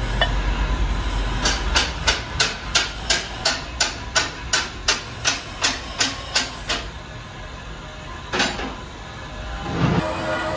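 Hammer blows on steel, about three a second for some five seconds, then one more blow a little later: the universal-joint yoke of a tractor PTO shaft is being driven into the end of its steel tube. An arc welder starts up near the end.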